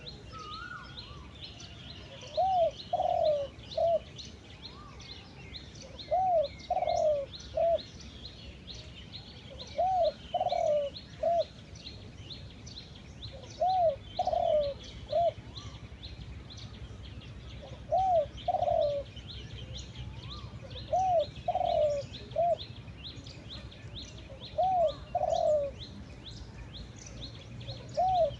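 Spotted dove cooing its three-note call, two arched notes and a short one, repeated about every four seconds, some eight times. High chirping of other birds runs underneath.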